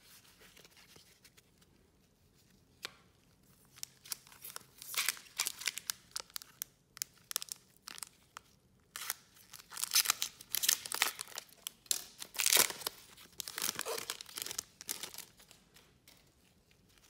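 A foil trading-card pack wrapper being torn open and crinkled by hand: a run of crackling, tearing bursts that start about four seconds in and are loudest a little past the middle.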